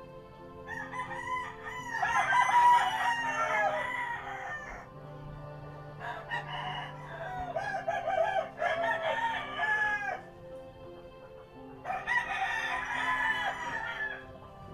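Fowl crowing in three long bouts of about four seconds each, over a steady low hum.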